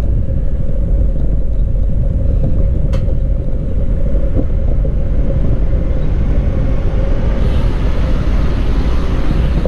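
Steady wind rumble on the microphone of a moving bicycle, with road and tyre noise and a thin steady hum underneath.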